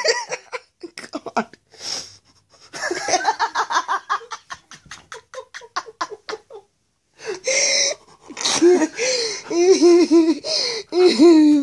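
Hard, breathless laughter: quick panting pulses of laughing in the first half, a short break about seven seconds in, then high-pitched wheezing, squealing laughter.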